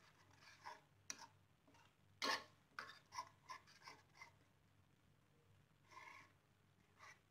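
Mostly near silence, with a handful of faint, short scrapes and taps of a spatula stirring thick gravy in a non-stick pan; the loudest comes about two seconds in.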